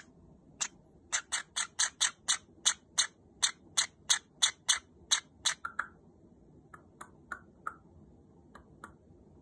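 Silver Java sparrow chick chirping in short, sharp, high-pitched calls, about four a second at first, then fewer and fainter from about six seconds in.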